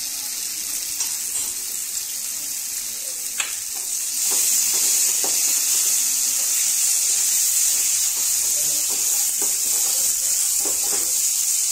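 Potatoes and spice masala sizzling in a frying pan on a gas flame, stirred and turned with a spatula, with a few sharp utensil taps against the pan. The sizzle gets louder about four seconds in.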